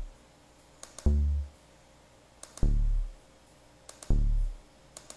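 Deep synth bass notes from a Sylenth1 preset in Ableton Live sound one at a time, three of them about a second and a half apart, each fading within half a second. Each note comes just after a pair of mouse clicks: it is the note preview heard as the bass notes are drawn into the piano roll.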